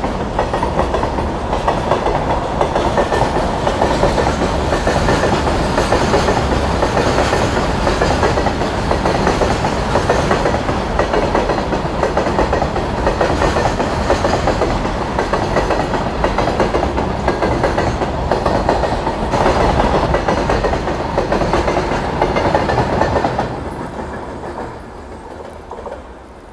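Goods train passing close by, its wagons rattling in a steady clickety-clack over the rails, fading away about 24 seconds in as the end of the train goes past.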